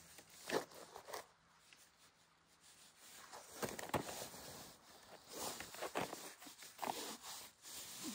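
Peeled wooden sticks being handled and bound into a bundle with cord: scattered rustling and rubbing, a few light knocks of stick on stick, and the scrape of cord being pulled tight, with a quieter stretch between about one and three seconds in.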